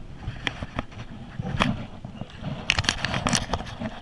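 Irregular sharp knocks, clicks and scrapes on a fishing kayak as a freshly caught bass is brought aboard and handled, with a quick cluster of knocks about three seconds in.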